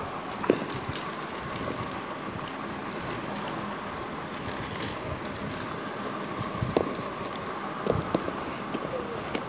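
Handling sounds of mesh running shoes being taken from their box and paper wrapping and set down on the floor: a knock about half a second in and a few more near the end, with soft rustling, over a steady background hiss.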